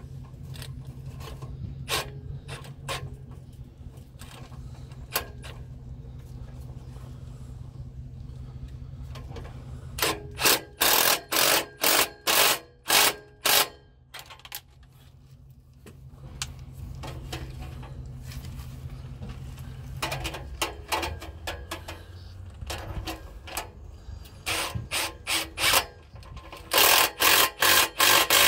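Hand ratchet tightening exhaust fasteners, clicking in quick strokes about two a second in two runs, over a steady low hum that stops about two-thirds of the way through.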